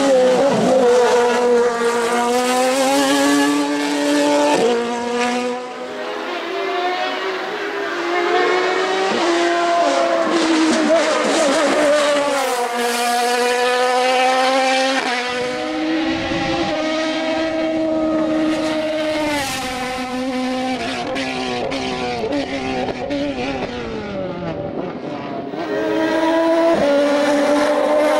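Radical SR4 sports prototype's engine revving hard as the car climbs through the gears, its pitch rising steeply and then dropping at each gearshift, several times over. Near the end the revs fall in a long slide as it brakes and downshifts, then climb again.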